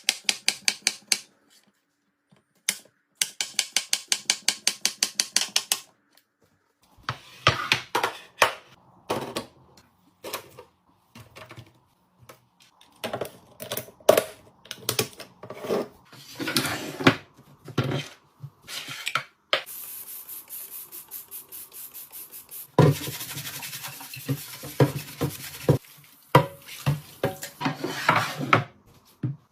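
Groceries and plastic fridge containers being handled and put away: clicking, clattering and rubbing. Near the start come runs of rapid, even clicks, about five a second, and a steady hiss lasts a few seconds about two-thirds of the way through.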